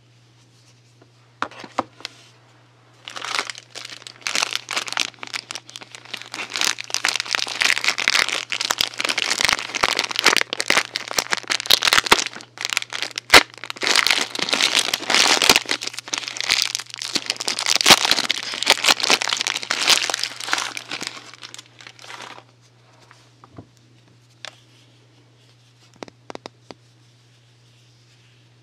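Packaging wrap being crinkled and rustled by hand as a parcel of soaps is unwrapped. It is dense and continuous from about three seconds in until about three-quarters of the way through, then gives way to a few scattered light clicks and taps over a faint steady hum.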